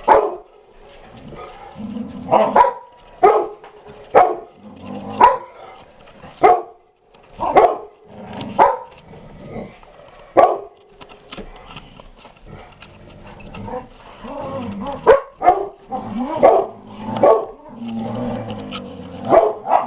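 Dogs barking in short single barks every second or so, coming more often in the last few seconds.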